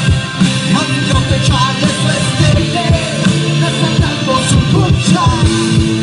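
Live band playing through a PA system: a steady drum beat, bass and electric guitar, with vocals over the top.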